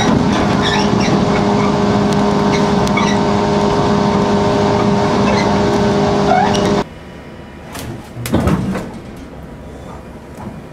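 Inside a JNR 115-series electric motor car running at steady speed: the MT54 traction motors hum at a constant pitch over wheel and rail noise, with light clicks. About seven seconds in the running noise cuts off abruptly, leaving a much quieter stopped-train background with one brief thump.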